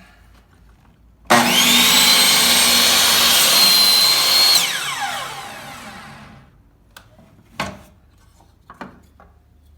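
Metabo HPT miter saw fitted with a 40-tooth carbide-tipped blade starts with a quickly rising whine and runs at a steady high pitch for about three seconds while cutting through a pine 2x2. The trigger is then released and the motor winds down over about two seconds, falling in pitch. A couple of short knocks follow.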